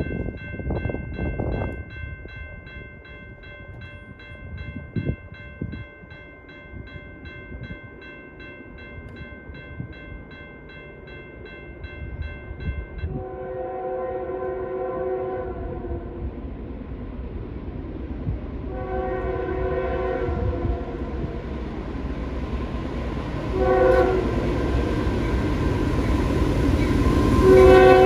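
CSX freight locomotive's air horn sounding the grade-crossing pattern, long, long, short, then a long blast starting near the end, over the rumble of the approaching manifest train, which grows steadily louder. Before the horn, a steady rapid ringing of a bell stops a little before halfway.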